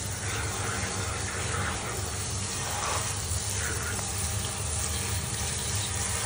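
Handheld shower running steadily, water spraying onto a wet dog and the bathtub.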